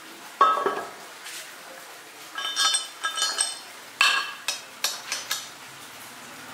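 A heavy metal mould lid set down with a clank on the tennis-ball mould, then a steel rod knocking and clinking against the lid as it is fitted into the bolt holes. The clinks ring briefly, with a quick run of sharper strikes around four to five seconds in.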